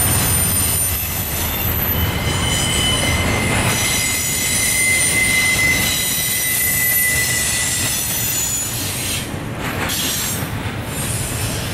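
Double-stack container well cars of a Union Pacific freight train rolling past: a steady, loud rumble of steel wheels on rail, with several thin, high steady squeals from the wheels over it, the strongest in the middle.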